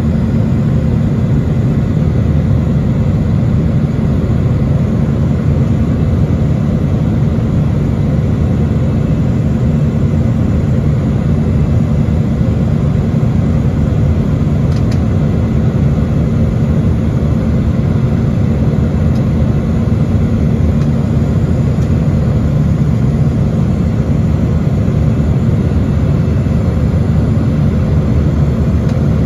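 Airbus A320 cabin noise during climb-out, heard inside the cabin over the wing: a steady, loud jet-engine and airflow rumble with a low steady hum.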